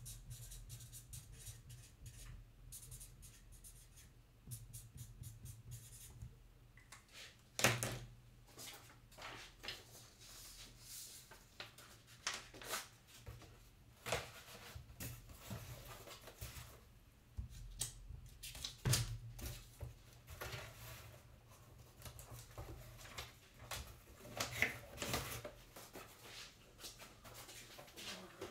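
Faint handling noises in a small room: scattered light clicks and rustles, two sharper knocks about a quarter and two-thirds of the way through, over a low steady hum.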